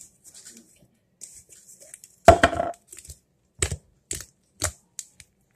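Pink slime being pressed, slapped and squished by hand on a countertop: sticky smacks and crackly squelches, the loudest a short burst about two seconds in, followed by about four sharper slaps roughly half a second apart.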